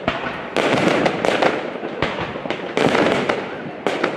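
Fireworks display: a fresh bang about every second, each followed by dense crackling that fades away before the next.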